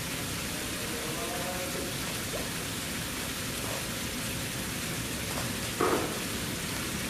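Steady hiss of falling water, with faint voices in the background and a short, louder voice about six seconds in.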